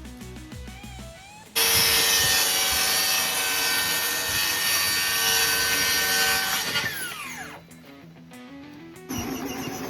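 A power tool starts suddenly over background music and runs loud and steady for about five seconds, then its motor winds down with a falling whine after the trigger is let go.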